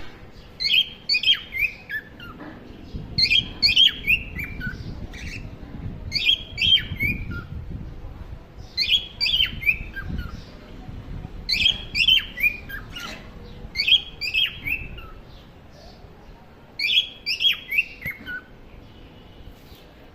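Cockatiel chicks calling in quick runs of three to five short, falling chirps, each run repeating every two to three seconds.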